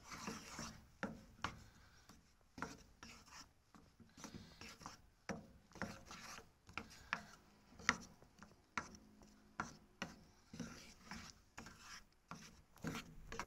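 Wooden spatula scraping and knocking against a stainless steel pan while stirring thick cream and chocolate, in irregular strokes about one or two a second. The mixture is kept moving so it doesn't stick to the bottom and burn.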